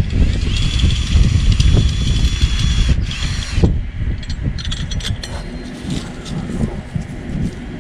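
A drill fitted with an ice-anchor adapter backing a screw-in ice anchor out of the ice: the motor whines steadily for about three seconds, stops, runs again briefly, then loose clicks and rattles follow, over low wind rumble on the microphone.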